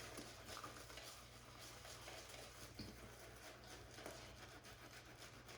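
Shaving brush faintly working soap into a lather, a soft, quick patter of bristles.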